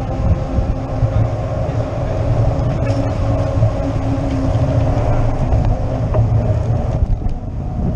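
Steady rumble of wind on the microphone of a camera riding on a moving bicycle, mixed with the tyres rolling on asphalt, with a faint steady hum over it.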